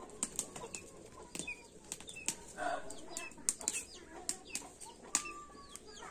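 Irregular sharp slaps and taps, about a dozen spread unevenly, over small birds chirping.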